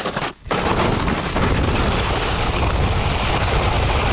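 Strong wind buffeting the microphone: a steady, loud rushing roar heaviest in the low end, broken by a brief drop-out about half a second in.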